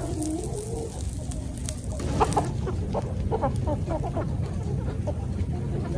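Chickens clucking: a drawn-out call near the start, then a run of quick short clucks from about two seconds in, over a steady low rumble.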